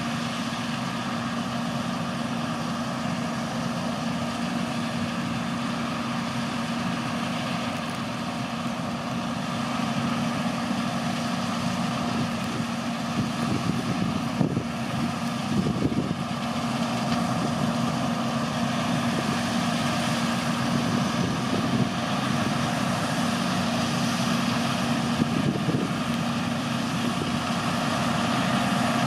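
John Deere 975 combine harvester running steadily under load while threshing and unloading grain through its auger, a constant diesel drone with a steady hum, with a tractor running alongside. It grows a little louder about a third of the way in.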